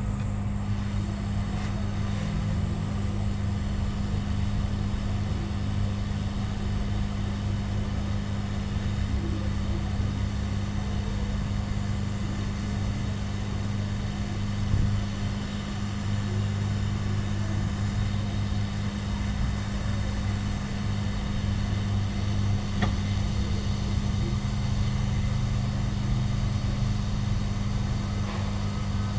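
Hot air rework station blowing steadily over a laptop motherboard to desolder failed capacitors, its fan running with a steady low hum. A faint high whine rises slightly in pitch over the first several seconds.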